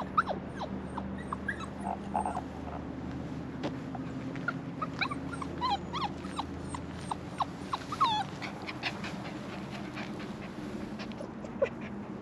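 A dog whining and whimpering in short, high cries that slide downward, coming thick and fast in the middle, over a steady low hum.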